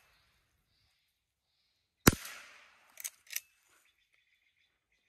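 A Henry Golden Boy .22 LR lever-action rifle fires one shot about two seconds in, a sharp crack with a short trailing echo. About a second later come two quick metallic clicks as the lever is worked to chamber the next round.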